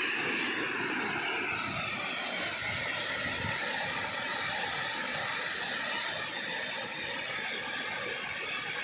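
Waterfall: falling water rushing with a steady, even noise.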